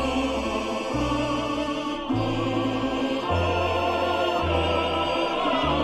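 Background music in a Russian folk style, played by a balalaika ensemble, with deep sustained bass notes that change about once a second.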